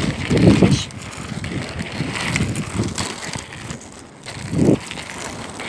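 Roller skate wheels rolling over rough asphalt, a continuous gritty rumble that swells about half a second in and again near the end.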